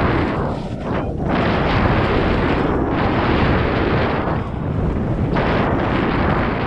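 Wind buffeting the microphone of a mountain bike's action camera while riding: a loud, even rushing noise, heaviest in the low end, easing briefly about a second in and again past four seconds.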